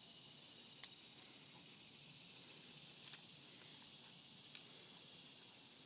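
Insects chirring steadily in the background, swelling louder in the middle and easing off near the end, with one sharp click about a second in.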